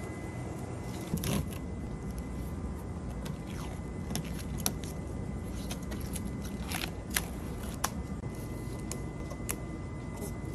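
Steady low workshop rumble with a faint steady tone, broken by scattered light clicks and scrapes from hands and tools working vinyl wrap film on a car body.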